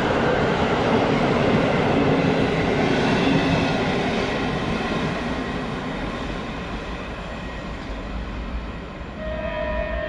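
Locomotive-hauled passenger coaches rolling past on the rails, the rumble fading as the last coach pulls away. A train horn starts to sound near the end.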